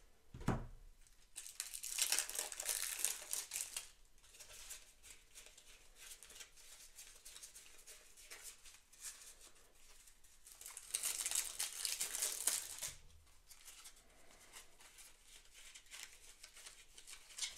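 Stack of thin Skyjo playing cards being fanned and flipped through in the hands, the cards sliding and flicking against each other in a dry papery rustle, loudest twice: about two seconds in and again around eleven seconds in.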